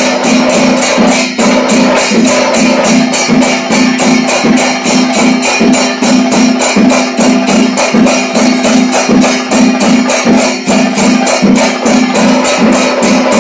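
Kerala temple percussion ensemble: drums and cymbals beating a fast, even rhythm of about five strokes a second over a steady held tone.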